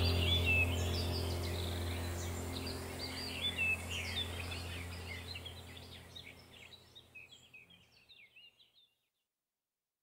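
Songbirds chirping and twittering over a steady low hum. Both fade out gradually and are gone about eight or nine seconds in.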